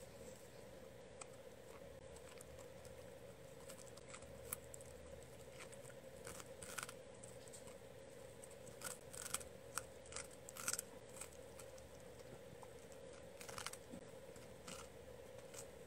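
Dachshund chewing on a green stick: faint, scattered crunches and clicks, most of them in the middle and near the end, over a steady low hum.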